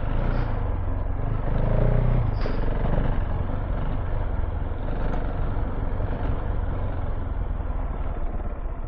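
Single-cylinder KTM 690 Enduro R engine running as the bike is ridden, with a brief rise in revs about two seconds in.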